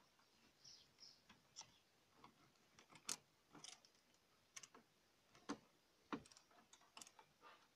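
Faint, scattered small clicks and ticks from a screwdriver and plastic dashboard trim being handled around a car's climate-control panel, a few of them sharper than the rest.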